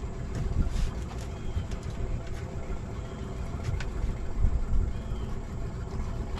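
Boat motor running steadily at low speed, a low rumble with a few light knocks on top.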